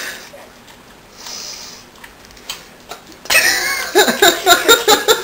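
A dog licking and smacking at sticky peanut butter, with short wet clicks of the tongue and jaws. About three seconds in, a loud run of pitched vocal sounds starts, rising and falling in pitch.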